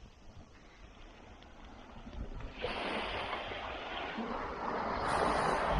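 Small waves breaking and washing up a sandy shore: faint at first, then a rushing swash of surf that starts about halfway in and grows louder.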